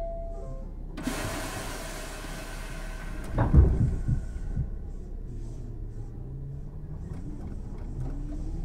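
Hankyu 6300 series train's doors closing at a station: a hiss of air from about a second in, then a heavy clunk and thuds as the doors shut. Near the end the traction motors start a rising hum as the train begins to pull away.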